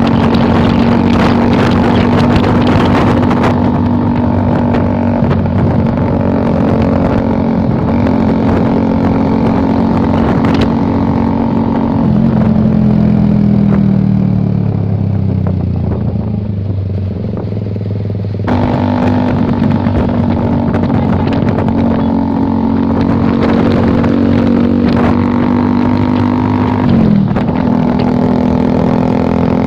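Suzuki GSX-R150's single-cylinder engine through an aftermarket CLD exhaust, ridden at steady revs. About twelve seconds in the revs fall away for several seconds as the bike slows, then pick up suddenly and hold steady again, with a brief dip and recovery near the end.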